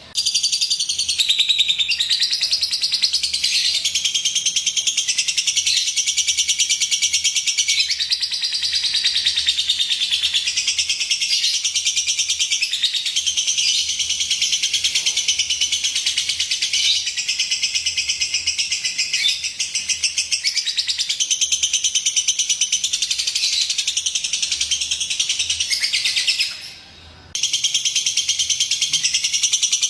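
Lovebird chirping in a fast, unbroken high-pitched chatter, the kind of recording played to lovebirds to trigger them into song. It breaks off briefly near the end and then resumes.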